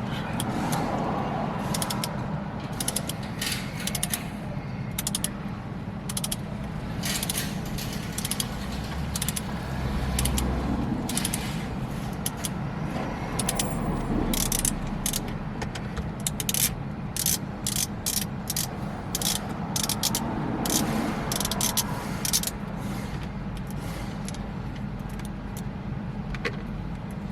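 Ratchet wrench clicking in quick runs while the steering wheel's centre bolt is loosened and backed out, over a steady low hum.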